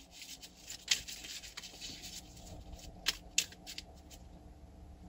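Deck of cards being shuffled by hand: soft rustling with a handful of sharp clicks and snaps.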